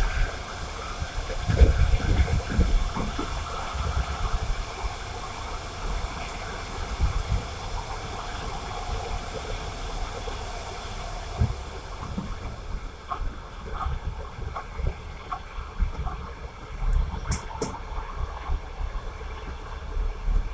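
Passenger train in motion: a steady rushing rumble with irregular low thuds and a few faint clicks.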